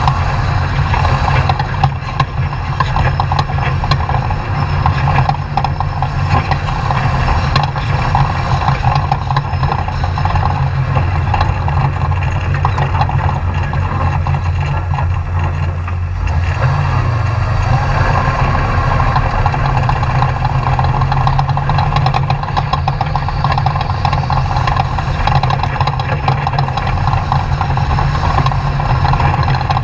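Off-road race truck engine running steadily and loudly, with a brief shift in its note about halfway through.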